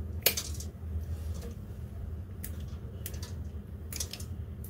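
Kitchen scissors snipping through boiled chicken feet: several sharp snips and clicks, the loudest just after the start, over a steady low hum.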